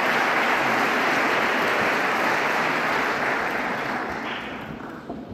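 Audience applauding, steady at first and dying away over the last two seconds or so.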